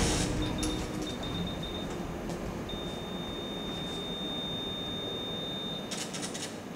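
Steady high-pitched electronic tone from a 3D laser scanner sweeping its laser line across a sandstone slab. It comes in broken stretches at first, then holds unbroken for about three seconds and stops, followed by a few clicks near the end.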